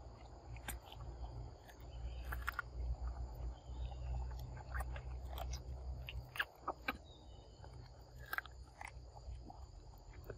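A young macaque biting and chewing soft, ripe fruit: irregular wet clicks and smacks of its mouth. A steady high insect buzz runs behind, and a low rumble sounds for a few seconds in the middle.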